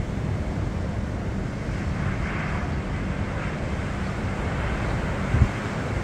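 Wind buffeting the microphone with a heavy rumble, over ocean surf washing ashore, the surf swelling about two seconds in. A gust knocks on the microphone near the end.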